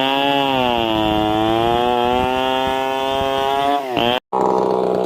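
Stihl chainsaw running at high revs, its pitch sagging slightly and recovering as it works under load. It cuts out abruptly about four seconds in and resumes at a lower, rougher pitch.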